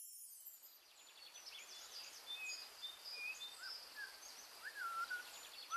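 Several birds chirping and calling quietly, a scatter of short whistled notes and quick rising and falling chirps that fade in over the first second.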